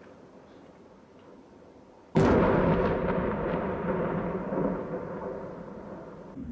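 One large explosion from a munition striking buildings about two seconds in: a sudden heavy blast followed by a long rolling rumble that fades over several seconds.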